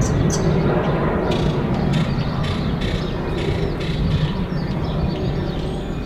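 A steady low rumble of outdoor background noise, with small birds giving short high chirps right at the start and again about four to five seconds in.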